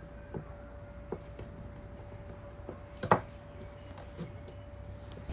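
Light clicks and taps of a screwdriver and small metal parts of a Solex carburettor being handled, with one sharp knock about three seconds in. A faint steady hum sits underneath.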